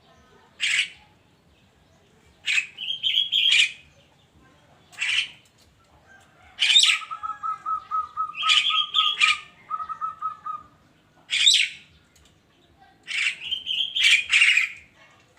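Javan myna (burung kerak) giving short, harsh, scratchy calls every second or two. A fast, even trill starts about seven seconds in and runs for some three seconds.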